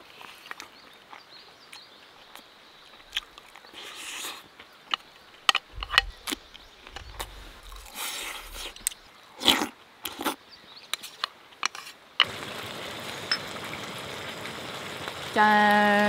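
Spoon and chopsticks clicking against a metal camping plate, with chewing, for most of the clip; about twelve seconds in a steady sizzle of stir-fried webfoot octopus and pork belly frying in a pan starts abruptly, and a short hummed voice comes near the end.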